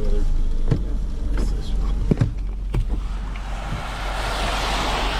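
A truck running with a steady low rumble, sharp clicks about every 0.7 seconds in the first half, and a rushing hiss that swells over the last two seconds.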